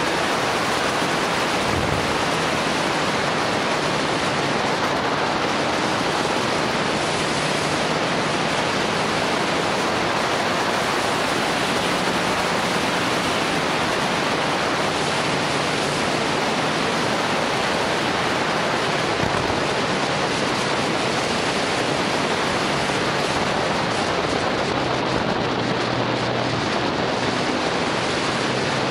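Steady wind rush over the microphone of a camera riding on a moving motorcycle, with the motorcycle's engine humming faintly underneath and shifting pitch now and then.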